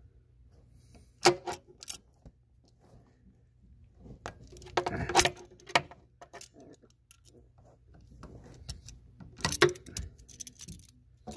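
Needle-nose pliers clicking and scraping against a stuck rubber raw-water pump impeller and its brass pump housing as the impeller is wiggled and pulled to break it loose from its shaft. Scattered small clicks and knocks, in clusters about a second in, around five seconds, and near ten seconds.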